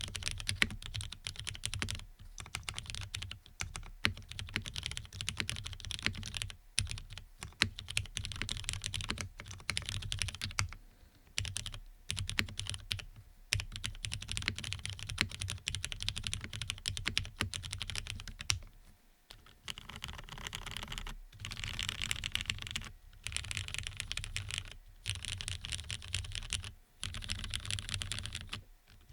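Fast, continuous typing on a GeonWorks Frog custom mechanical keyboard with lubed Cherry MX Black linear switches on an FR4 half plate, in runs of rapid keystrokes broken by short pauses. The typing stops right at the end.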